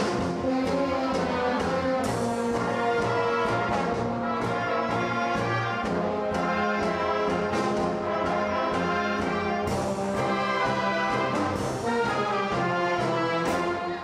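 Music played by brass instruments: held chords and moving lines, with sharp percussive accents throughout.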